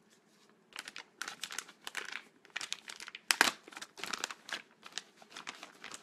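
Clear plastic bag crinkling as it is handled and pulled open, in irregular crackles that start about a second in, with one sharper crackle near the middle.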